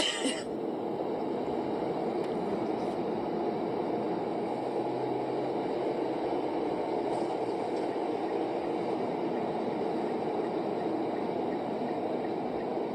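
Steady road and engine noise inside a moving car's cabin, as picked up by a dashcam. A short, loud burst ends right at the start.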